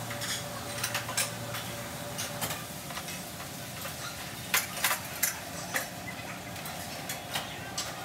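Ceramic restaurant plates clinking and clattering as they are handled and stacked, with a cluster of sharp clatters about halfway through, over a steady background hum.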